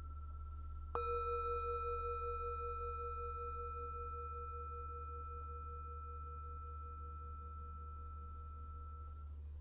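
A Tibetan singing bowl is struck once about a second in and rings on with several tones. The lowest tone wavers, and the ring fades slowly over the following seconds. The fading ring of an earlier strike is heard before it, over a steady low hum.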